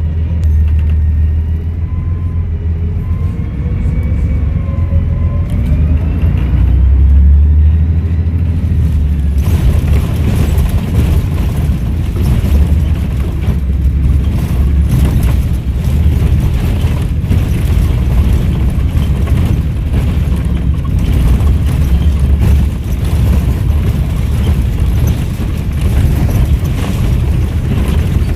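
Volvo B7RLE bus's diesel engine and Voith automatic gearbox pulling away under load, with a deep rumble and a turbo whistle rising in pitch over the first several seconds. About nine seconds in, the sound opens into a fuller, rattly running noise as the bus carries on at speed.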